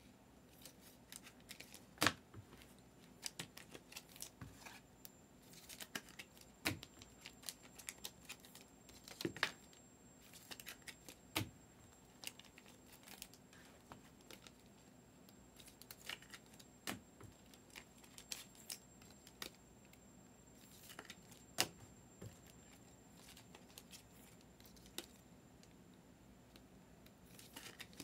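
Trading cards being handled and flipped through by hand: faint, scattered clicks and snaps of card stock, a few of them sharper.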